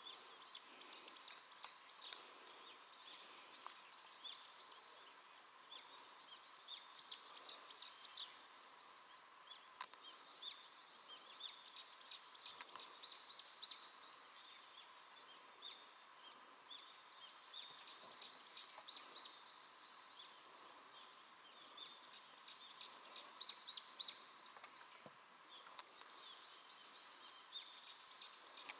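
Faint birdsong: several birds giving many short chirps and trills throughout, over a steady faint hum.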